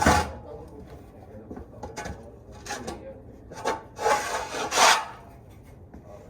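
Shovel scraping and scooping through soiled bedding on a horse stall floor in a series of short, noisy strokes, the loudest a little after four and five seconds in.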